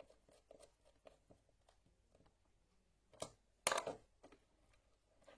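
Small clicks and scrapes of a screwdriver working the wire terminal screws of a wall socket, with two louder sharp knocks a little past halfway.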